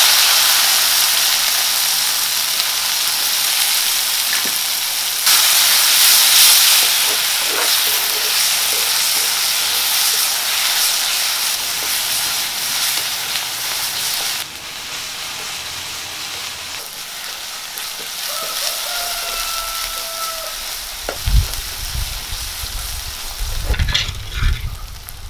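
Ground green chilli and shallot paste sizzling loudly as it fries in hot oil in an iron kadai, stirred with a spoon. The sizzle jumps louder about five seconds in and eases off after about fifteen seconds as the paste cooks down.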